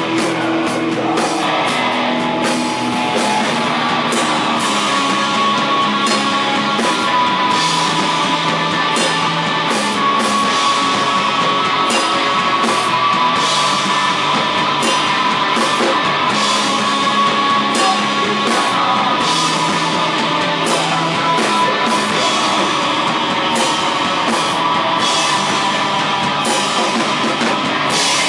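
A post-hardcore band playing live, with loud electric guitars and a drum kit playing a busy, driving part.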